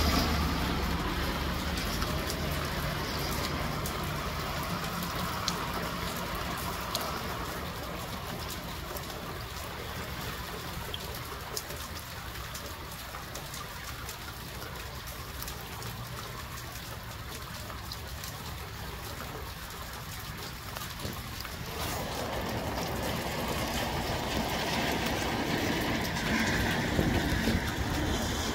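Gusty wind with a rain shower falling. The gusts ease off through the middle and build again about three-quarters of the way through.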